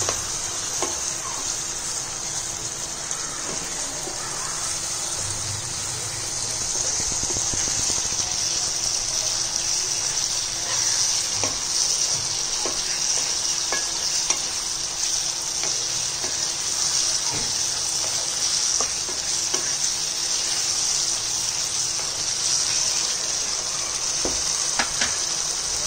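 Mutton liver gravy sizzling in a nonstick pan while a wooden spatula stirs it, with light scrapes and taps of the spatula on the pan. The sizzle grows louder about six seconds in.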